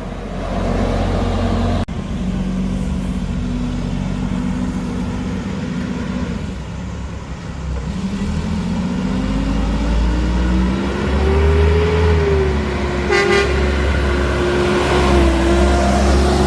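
Mack garbage truck with a McNeilus front-loader body, its diesel engine running steadily, then revving up about eight seconds in and holding the higher speed. A short horn toot sounds partway through the high revs.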